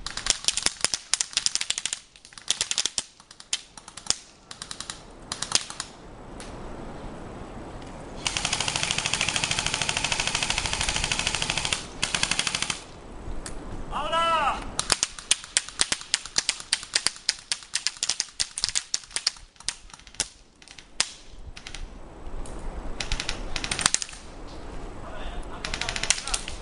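Airsoft guns firing across the field: scattered single shots throughout, with a long continuous full-auto burst from about 8 to 12.5 seconds in and another run of rapid fire near the end.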